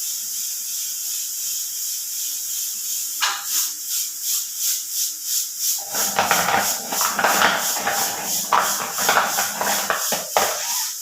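Hard naphthalene mothballs shaken and rattled together, clicking against each other in a quick, even rhythm that grows into a loud clatter about six seconds in, over a steady hiss.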